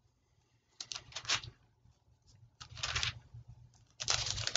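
Paper pages being turned, in three short rustles: a Bible being leafed through to find a passage.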